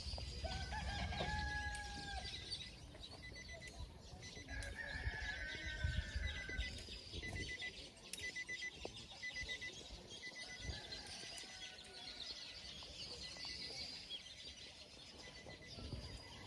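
Birds calling outdoors: a few drawn-out calls about a second long, among faint high chirping, over a low rumble.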